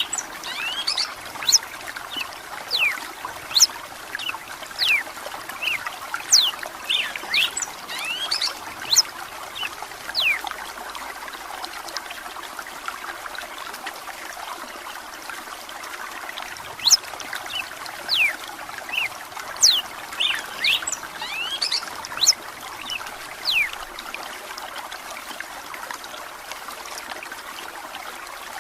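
Red-cowled cardinal singing in spells of quick, sharp whistled notes over the steady sound of running water. The song pauses for several seconds in the middle and again near the end, leaving only the water.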